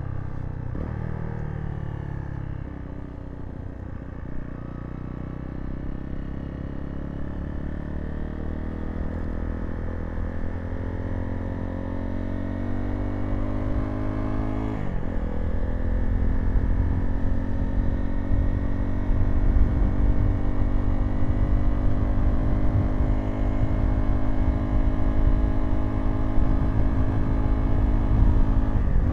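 Zontes T2 350 motorcycle's single-cylinder engine under way, dropping in pitch at first as it slows for a turn, then pulling away with the pitch climbing steadily. A quick gear change comes about halfway through and another near the end, and the engine grows louder as speed builds.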